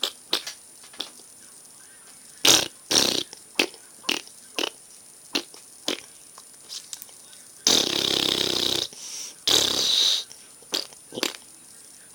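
A child making pretend fart noises: two short ones about two and a half seconds in, then two longer, louder ones around eight and ten seconds in, with sharp little clicks scattered in between.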